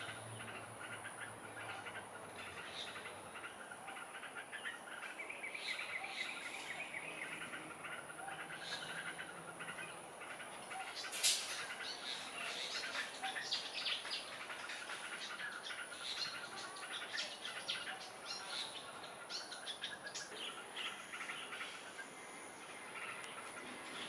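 Yellow-vented bulbul calling in short, staccato chirps over a steady high-pitched whine, with a single sharp click about eleven seconds in.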